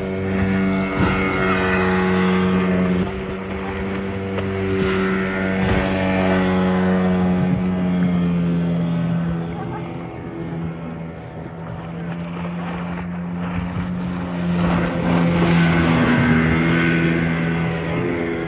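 An engine running at a steady speed, its pitch nearly constant with slight dips, getting louder for a couple of seconds near the start and again near the end.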